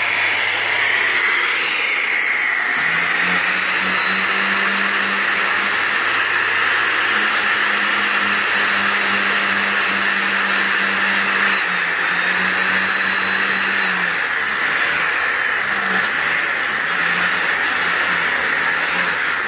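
High-speed polisher spinning an airway buffing wheel loaded with green chromium compound against aluminum trailer letters, the cut-and-color stage of polishing. It runs as a steady high whine whose pitch shifts slightly as the wheel is pressed to and eased off the work.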